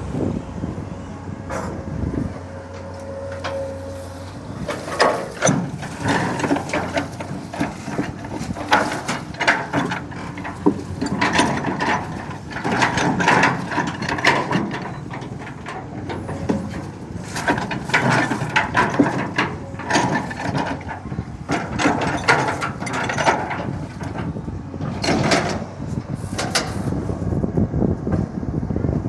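Excavator working: a low engine hum with a dense run of irregular clicks and knocks from about five seconds in until near the end.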